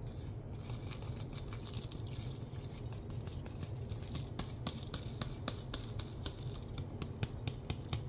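Irregular light clicks and crackles over a steady low hum, thickest in the second half.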